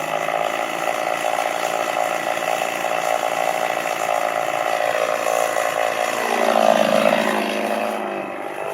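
Chainsaw engine running under load while making the back cut of a tree felling. The pitch holds steady, then rises a little about six seconds in.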